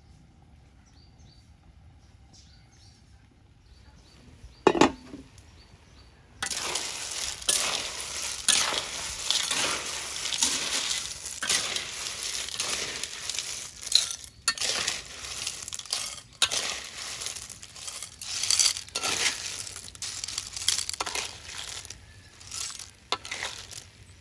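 Sea snail shells clattering and scraping against a metal wok as they are stirred with a spatula, with sizzling, starting suddenly about six seconds in and going on as a dense run of clinks. A single loud metal clank comes about five seconds in.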